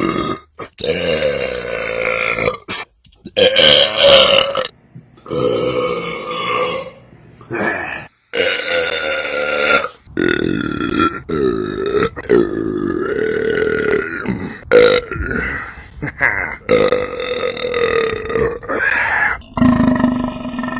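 Long, drawn-out belches, one after another, with short breaks between them. Near the end a lower, steadier sound sets in.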